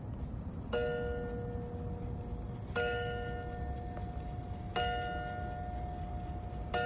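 Howard Miller Park Avenue mantel clock's German key-wound chime movement striking one chime rod with its hammer: four ringing strokes of the same note, about two seconds apart, each ringing on until the next, as when it counts the hour.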